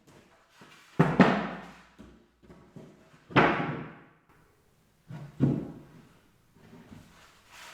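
Three loud thuds about two seconds apart, each ringing briefly before dying away, with a few fainter knocks between them.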